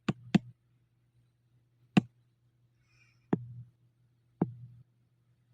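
Five sharp taps of a pen on a tablet's touchscreen, irregularly spaced, two close together at the start and the rest a second or more apart, over a faint steady hum.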